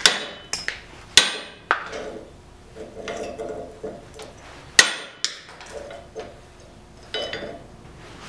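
A broken chunk of forged steel-and-copper billet knocked and set down on a steel vise's jaws: a series of sharp metal-on-metal clinks and knocks, the loudest at the start, about a second in and near five seconds in, with a short rattle between.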